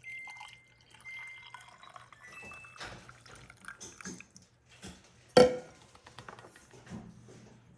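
Brewed tea being poured into a glass container, a thin ringing tone rising in pitch as it fills, followed by a few clinks of glass and cup, the loudest about five and a half seconds in.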